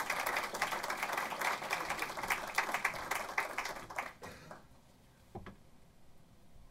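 Audience applauding, a dense run of many hands clapping that fades out about two-thirds of the way through. Afterwards there are a couple of faint knocks.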